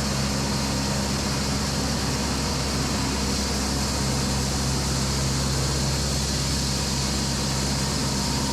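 Echo 45HD2 band sawmill running, a loud steady mechanical drone with a constant low hum and no distinct knocks or changes.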